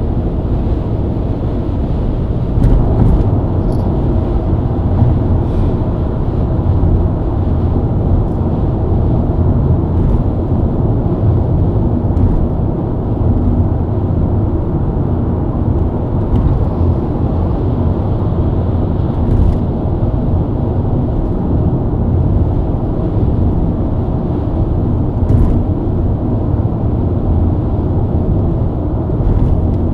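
BMW E90 323i's straight-six engine and tyre-on-road noise at a steady highway cruise: an even, low drone, with a few faint ticks now and then.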